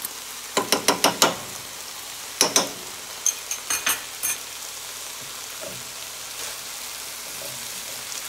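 Chicken, mushrooms and peppers sizzling steadily in a hot skillet. In the first half there are a dozen or so sharp taps, some in quick runs, as a fork knocks pressed garlic off the garlic press into the pan. Softer stirring scrapes follow near the end.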